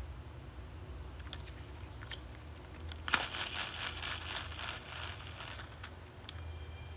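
Plastic toy crane truck handled by hand: a sharp click about three seconds in, then a rapid run of plastic clicks and rattling for about two seconds, over a low steady hum.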